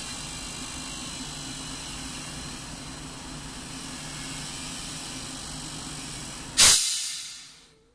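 Shop press's power unit running with a steady hum and hiss while its ram retracts after pressing a bushing into a trailing arm. Near the end comes a sudden loud hiss that dies away within about a second, and the machine stops.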